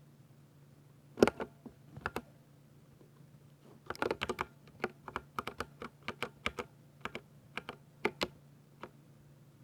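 Typing on a Ducky 60% mechanical keyboard with silver switches: irregular keystrokes, a loud one about a second in, a quick burst of strokes around the middle, then scattered presses that stop shortly before the end.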